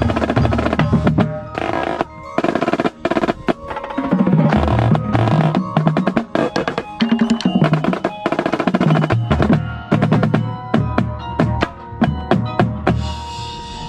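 Marching drumline playing a fast passage: snare drums in dense strokes and rolls close up, over pitched bass drum notes moving between drums. The playing stops near the end.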